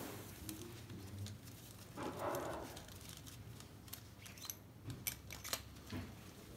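Faint clicks and light metallic ticks from gloved hands handling fittings at the injector bore of a Toyota 1KD turbodiesel cylinder head, with a short rustle about two seconds in.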